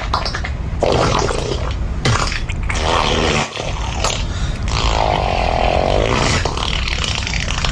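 A farting sound effect played loudly and without pause: long, rough, rasping blasts with a short break about three and a half seconds in.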